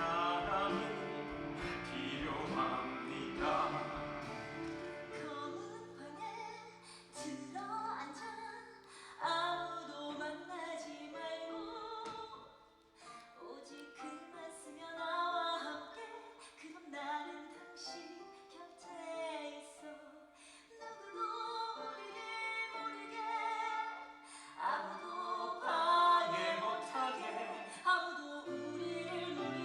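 A musical-theatre song: a solo voice singing over instrumental accompaniment, sparse through the middle and swelling fuller near the end.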